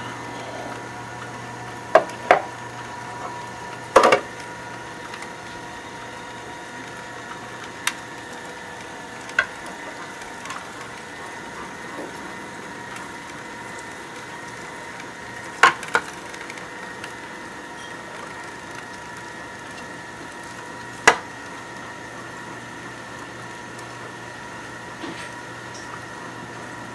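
Vertical Omega masticating slow juicer running with a steady motor hum as leftover pulp is fed through it, with sharp cracks and clicks now and then.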